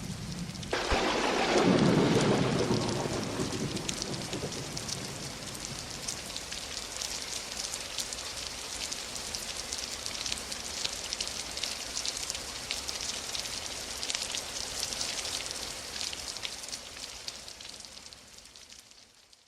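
A thunderclap breaks about a second in and rumbles away over several seconds, over steady rain pattering with many fine drop ticks. The sound fades out near the end.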